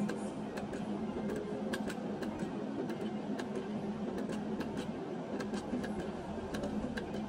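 Video slot machine spinning its reels: an irregular run of sharp electronic ticks and clicks over a steady low hum.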